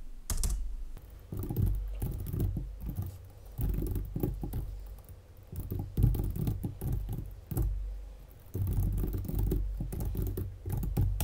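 Typing on a computer keyboard: irregular bursts of key clicks with short pauses between them.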